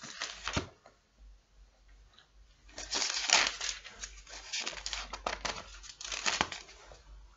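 Pages of a Bible rustling and crinkling as they are leafed through, in a run of irregular rustles that starts about three seconds in and is loudest just after it begins.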